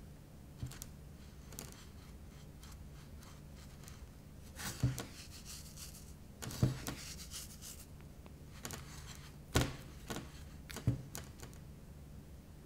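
Dry bread crumbs rustling and scratching as a potato corn dog is rolled and pressed into them in a glass dish, with a few soft knocks against the dish.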